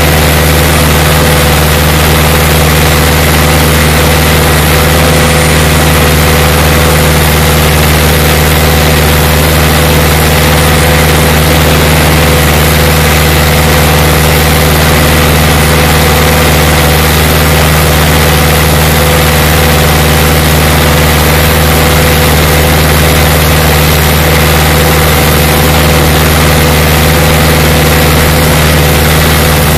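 Case IH 845 tractor's diesel engine running steadily while working the soil, a loud constant drone with a deep hum.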